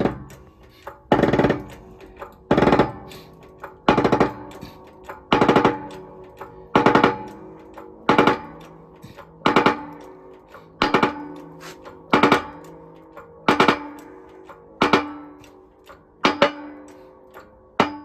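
Hammer blows driving a gear onto a tractor transmission shaft through a metal driver: a steady run of loud ringing metal strikes, about one every second and a half, each with a quick bounce.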